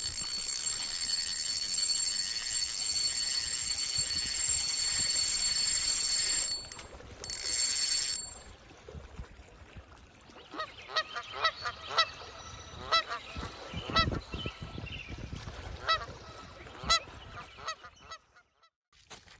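A bright, steady high hiss with a ringing tone in it, which cuts off about eight seconds in. Then geese honk about a dozen times over several seconds.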